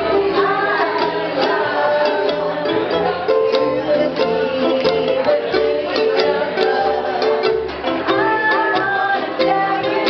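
Live acoustic band music: several ukuleles strummed together over an upright bass, with a group of voices singing the melody.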